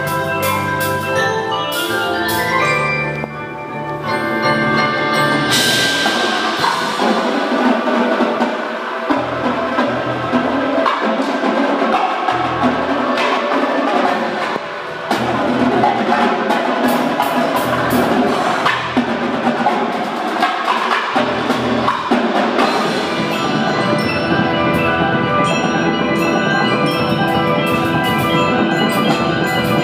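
Indoor percussion ensemble playing: marimbas and other mallet keyboards with a drum line, many pitched struck notes over drum hits. A rising run of mallet notes opens, then the full ensemble comes in loud about five and a half seconds in and keeps up dense, rhythmic playing.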